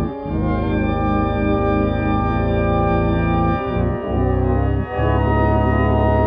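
Loud, sustained organ-like chords with a dense, buzzy tone, held steady and changing chord a few times, with brief breaks just after the start and three times in the second half.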